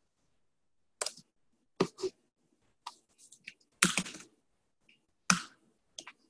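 Laptop keyboard keystrokes: about ten separate key taps at irregular intervals, a few in quick pairs, with a short flurry about four seconds in, as editor shortcuts are typed.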